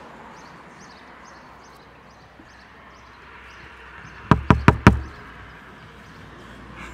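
Knuckles knocking on an office window, four quick raps in a row about four seconds in.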